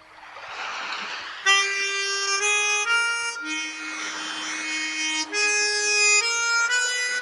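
Cartoon soundtrack music: a harmonica playing a slow tune of held notes that step from one pitch to the next, after a soft rushing noise in the first second and a half.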